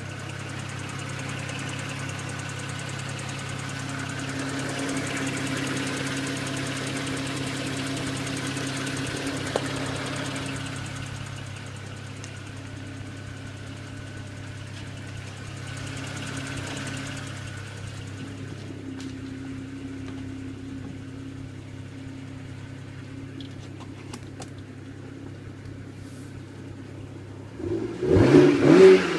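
BMW 135i's N54 twin-turbo straight-six idling steadily with the ticking noise it is being recorded for. Near the end it is revved, the pitch rising and falling.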